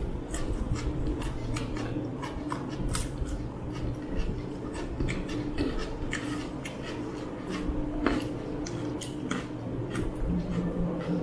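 Close-up eating sounds of people eating mutton curry and rice with their fingers: irregular wet clicks of chewing, lip smacking and finger licking, over a low steady hum.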